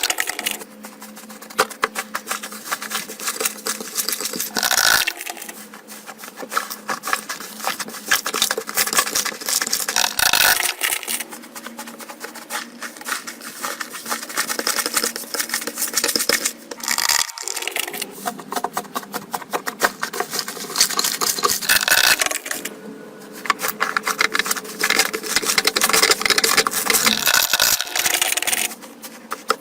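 Slime being squished and pressed by hand, a dense run of small sticky clicks and pops, with a louder squelch every several seconds.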